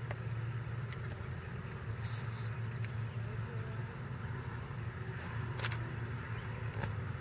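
Steady low hum of a distant motor, with a few faint ticks and taps and two brief high blips about two seconds in.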